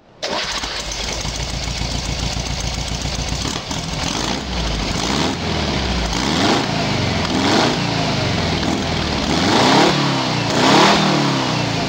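An engine running steadily, then revved over and over, its pitch rising and falling about once a second.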